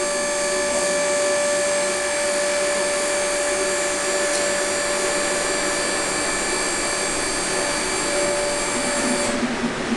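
Large belt-driven machine with its electric motor running: a steady, loud mechanical whine over a rushing noise that cuts off abruptly about nine seconds in.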